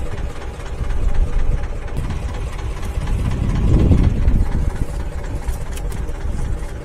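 Fishing boat's engine idling, a steady low rumble that grows louder for a moment around the middle.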